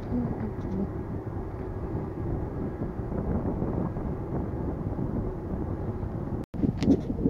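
Steady wind rush on the microphone and tyre noise from a bicycle rolling along a paved road. The sound drops out for a moment about six and a half seconds in, and a few sharp clicks follow.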